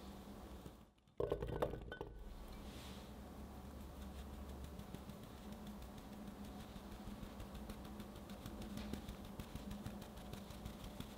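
Powdered sugar being dusted from a small sieve over peeled peach balls in an enamel container: a faint, fine patter of many light ticks. About a second in there is a brief louder clatter.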